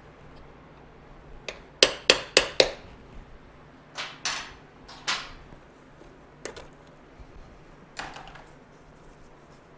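Metal tools knocking and clanking on motorcycle parts during disassembly. There are four quick, sharp strikes about two seconds in, then several scattered clanks with a brief ring.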